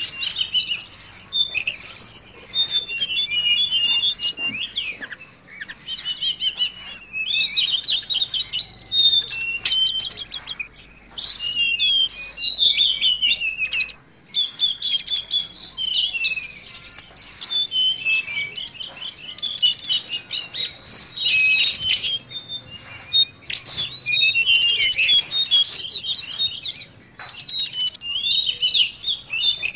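Caged tledekan laut, a blue flycatcher, singing a fast, varied song of high chirps, whistles and rapid trills, broken by a few short pauses.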